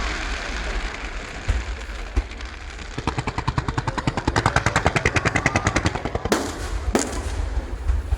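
Fireworks going off: a couple of single pops, then a rapid string of cracks, more than ten a second for about three seconds, and two sharp loud bangs near the end.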